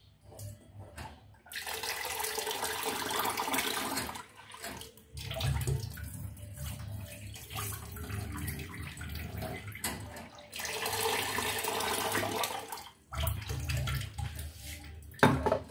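Kitchen tap running into a pot in spells of a few seconds, with water splashing, stopping briefly between spells. A sharp knock near the end.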